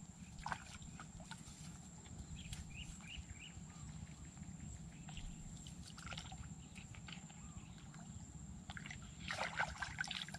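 Faint sloshing and trickling of shallow creek water as a stick is worked through it, with a louder splash about nine seconds in.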